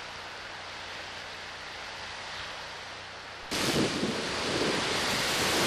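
A steady, quieter hiss of sea and air, then about three and a half seconds in a sudden jump to loud wind buffeting the microphone and the rush of breaking waves and bow spray along a sailboat's hull in heavy seas.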